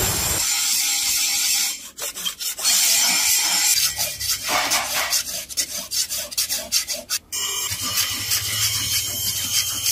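A two-handled steel scraper drawn again and again along a clamped steel knife blade, shaving off curls of metal with a harsh rasp. There are short breaks about two seconds in and again near the end.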